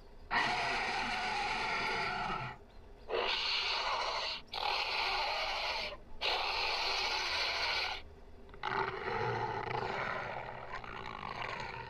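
Dinosaur roar sound effect given to a toy Megaraptor: a string of long, hoarse roars with short breaks between them, the last one quieter.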